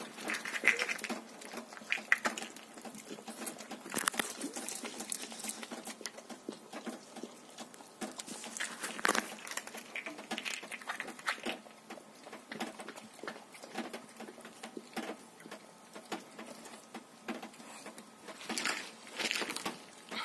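A dog eating an egg off the ground: a stream of short wet smacking and crunching clicks as it bites and chews, with louder clusters now and then.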